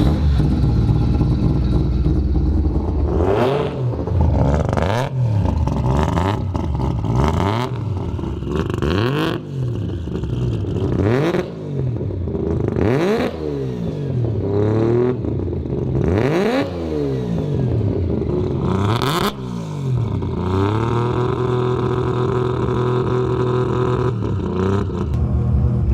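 Three-rotor rotary engine of a Mazda RX-7 revved up and down repeatedly, with short sharp bursts of noise at several peaks. It settles to a steadier note over the last few seconds.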